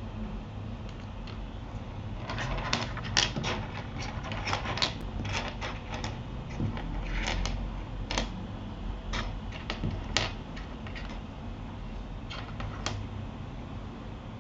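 Irregular clicks and clacks at a Keychron K8 mechanical keyboard, coming in scattered clusters with short pauses between, over a low steady hum.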